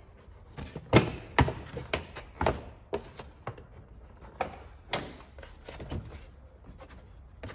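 Plastic airbox being knocked and pushed into its mounting points in a car's engine bay: about ten irregular knocks and clunks, the loudest about a second in.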